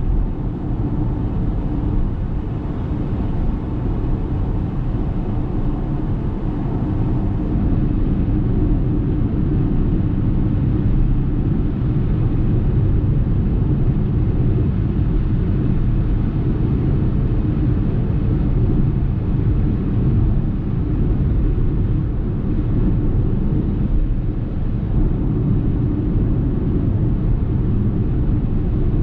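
Road and tyre noise from a 2023 Ora Good Cat electric hatchback driving along, with no engine sound: a continuous low rumble that grows slightly louder after about eight seconds.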